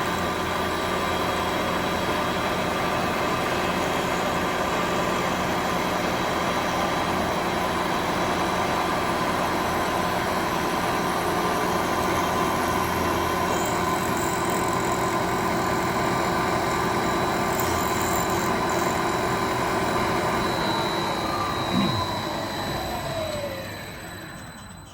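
Milling machine running steadily as its cutter takes a final pass in metal. About 22 seconds in, the spindle motor is switched off and its pitch falls as it spins down.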